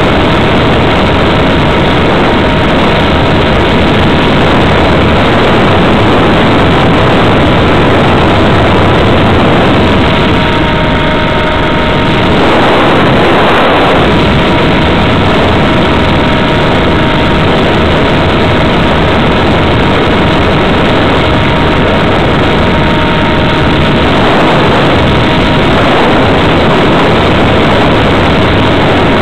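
Radio-controlled model aircraft's motor and propeller running with a steady whine under loud rushing air noise, heard from a camera riding on the model. The rush swells briefly about halfway through and again near the end.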